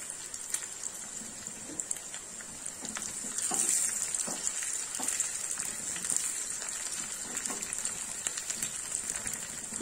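Hot oil sizzling in a small pan as a tadka of garlic, onion, mustard seeds, cumin and dried red chillies fries: a steady hiss with scattered crackles, stirred with a metal spoon.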